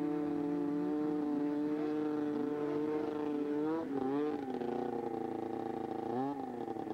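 Two-stroke snowmobile engine running at high revs with a steady, high-pitched whine. Its pitch dips and climbs back about four seconds in and again near the end, as the throttle is let off and reapplied.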